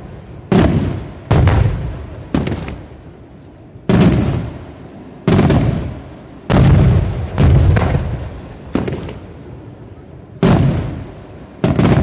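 Aerial firework shells bursting in an irregular series, about ten sharp booms, each followed by a rolling echo that dies away.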